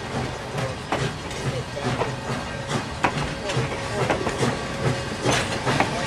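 Steel-wheeled passenger coaches rolling past close by: a steady rumble with sharp clicks at uneven intervals as the wheels cross rail joints.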